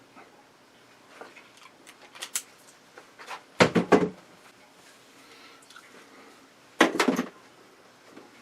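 Bottle opener and glass beer bottle being handled: scattered light clicks and clinks, with two louder short clatters about three and a half and seven seconds in.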